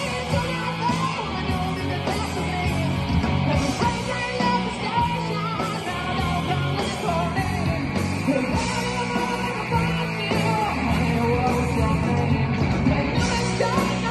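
Rock band playing live: overdriven electric guitars, bass guitar and drums together.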